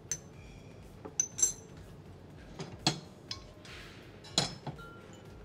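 Kitchen utensils and cookware clinking: several sharp metal-on-metal clinks and knocks, some ringing briefly. There is a short hiss about two-thirds of the way through.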